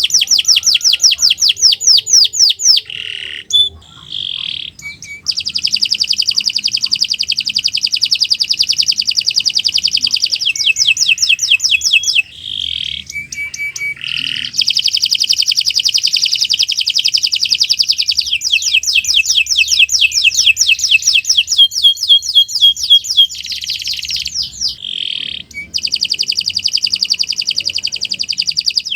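Domestic canary singing a long, continuous song of fast rolling trills, each made of rapidly repeated chirps. The song breaks off briefly three times, about 3, 12 and 23 seconds in.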